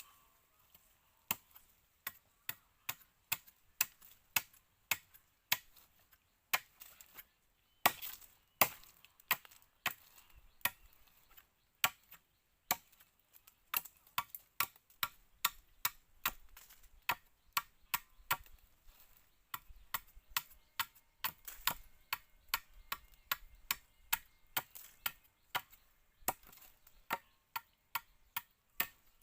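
Repeated sharp chopping strikes into wood, about one to two a second, irregular, some coming in quick pairs.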